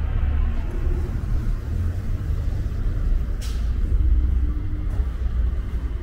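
Steady low rumble of city street ambience, with a brief sharp hiss about three and a half seconds in.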